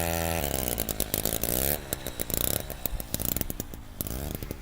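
Power ice auger motor running, its pitch repeatedly rising and falling as the speed changes, and dropping to a lower level about two seconds in.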